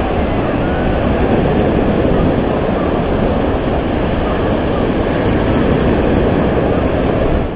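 Small waves breaking and washing up a sandy beach: a loud, steady rushing noise with a deep rumble underneath.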